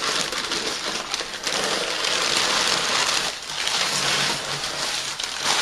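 Crumpled brown kraft packing paper rustling and crackling as hands dig through it in a cardboard box, with a couple of brief lulls.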